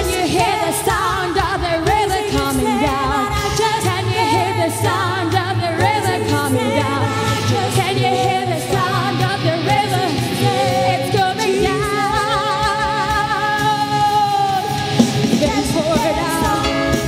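Live church worship band playing, with a singer's wavering, sustained vocal lines over a steady drum beat.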